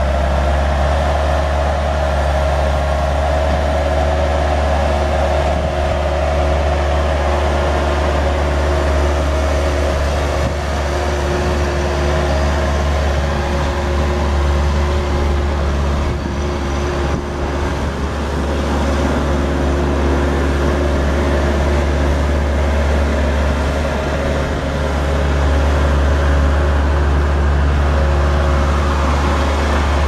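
A 1997 Bobcat 763 skid steer's Kubota V2203 four-cylinder diesel engine running steadily, getting a little louder a few seconds before the end.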